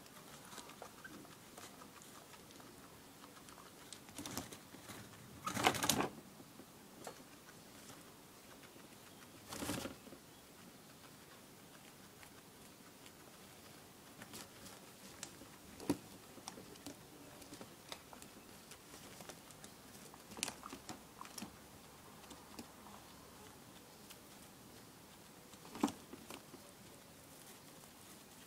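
Guinea pigs moving about their cage: faint rustling in wood-shaving bedding with light clicks and scratching, and two louder rustles about six and ten seconds in.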